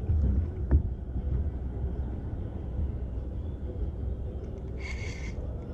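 Steady low outdoor rumble, with one sharp click about a second in and a brief high-pitched squeal near the end.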